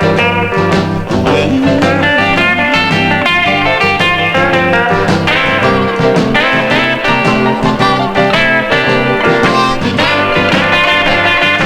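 Instrumental break in a 1950s Chicago blues record: electric guitar leading over the band's steady rhythm, with no vocals.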